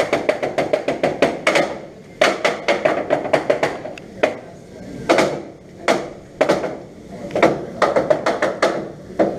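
Teppanyaki chef's metal spatula and knife striking the steel griddle. A fast, even clacking of about six or seven strikes a second runs for the first second and a half, then gives way to slower strikes, some in short clusters.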